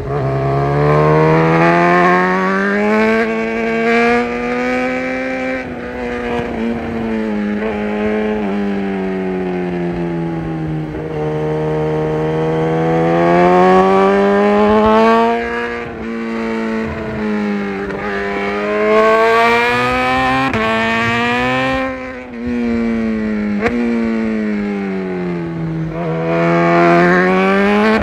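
BMW S1000RR inline-four engine heard on board, revving up and down as the bike accelerates and rolls off the throttle through bends. The pitch rises smoothly, then drops sharply at each gear change or throttle close, over a steady rush of wind.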